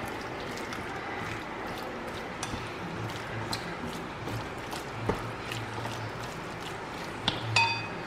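A wooden utensil stirring cornflour-coated chicken pieces in a bowl: soft wet squishing with scattered light taps against the bowl. Near the end comes a short ringing clink.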